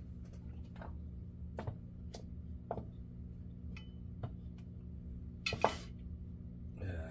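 Scattered light clicks and clinks of small metal reel parts and tools being handled on a workbench, with one louder knock about five and a half seconds in.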